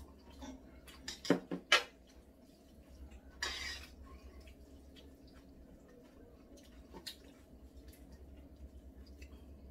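Chopsticks clicking against ceramic bowls and a pot while noodles in black bean sauce are eaten and served: a few sharp clicks about a second in, a short wet noise around three and a half seconds, and one more click near seven seconds.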